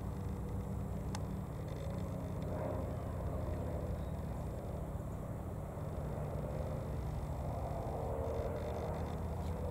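Single piston engine and propeller of a de Havilland Chipmunk droning steadily overhead during an aerobatic display, its pitch wavering slightly as it manoeuvres.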